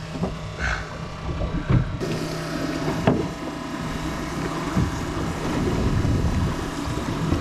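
Boat engine running steadily with a low hum, under wind and water noise, with a few light knocks and one sharper knock about three seconds in.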